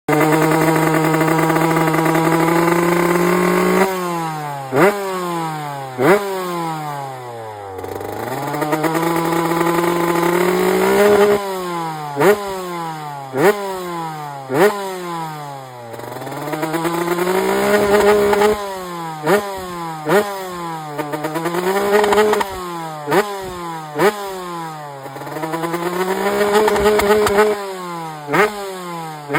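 TM 125 single-cylinder two-stroke engine being revved: held at steady revs for about four seconds, then dropping off, followed by a run of sharp quick throttle blips and slower swells up and back down to a low idle.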